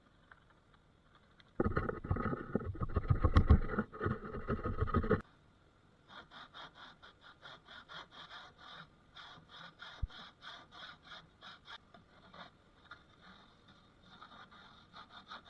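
Back saw cutting a dado in reclaimed pallet wood: a louder stretch of quick saw strokes that stops abruptly, then a quieter run of steady strokes, two or three a second.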